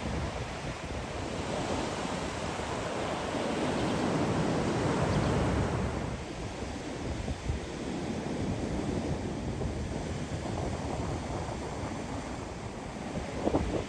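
Ocean surf breaking and washing up the beach, with wind buffeting the microphone. The wash swells to its loudest about five seconds in, then eases back.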